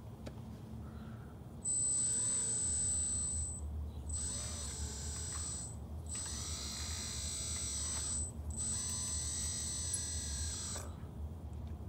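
Electric motors of a 1:16 RC CAT excavator whining at a high pitch as the boom and arm move, in four stretches with brief pauses between them.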